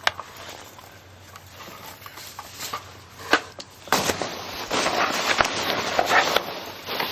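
A few sharp clicks of handling, then from about four seconds in, dense crackling and rustling of packing material as a box of parts is rummaged through.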